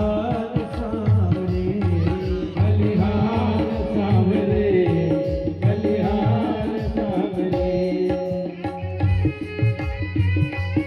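Indian music with tabla-style hand drumming and a singing voice.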